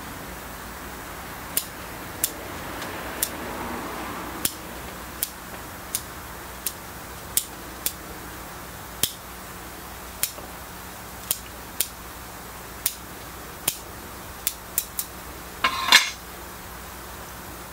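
Steel bonsai scissors snipping through the roots of a rōyagaki persimmon in a series of sharp, crisp clicks, roughly one a second. Near the end comes one louder metallic clatter as the scissors are set down on the stand.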